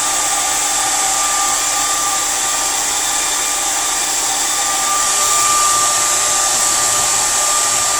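Handheld blow dryer running steadily, a rush of air with a steady whine from its motor, growing a little louder about five seconds in.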